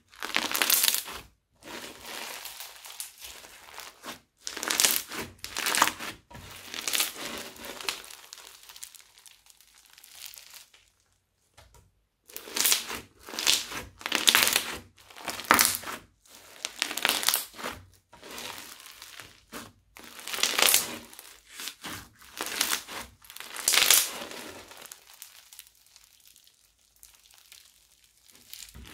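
Floam, slime packed with tiny foam beads, being pressed, folded and stretched by hand, giving irregular bursts of crunchy crackling. There is a short pause about eleven seconds in.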